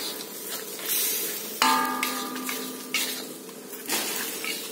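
Metal spatula stirring and scraping in a large metal wok while the food sizzles, with one clang about a second and a half in that leaves the wok ringing for over a second.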